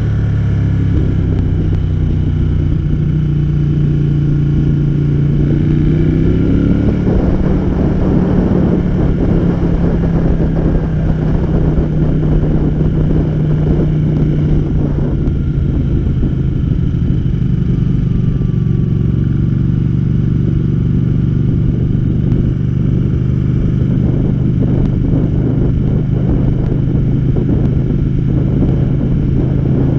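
Ducati Panigale motorcycle engine running under way, heard from on board the bike with a constant rush of wind and road noise. The engine note climbs steadily as the bike accelerates during the first several seconds, then holds a fairly even pitch at a cruise.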